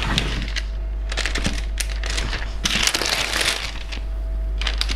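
Wavy crinkle-cut knife pressed down again and again through soft yeast dough onto parchment paper, each cut giving a crinkling, scraping rustle of the paper; the longest comes about three seconds in.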